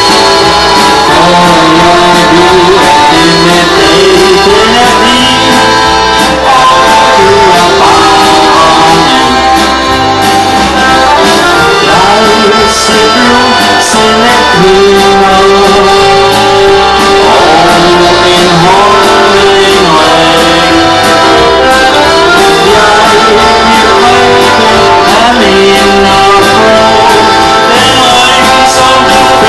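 An accordion band playing an instrumental passage: several accordions carry the melody and chords together, over an electric bass guitar, amplified through a PA.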